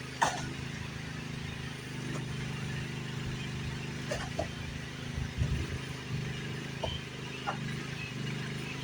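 Engine of a small machine running steadily while it pulls on a strap to drag a shed wall out, with a few sharp cracks and creaks breaking in, the loudest about a quarter second in.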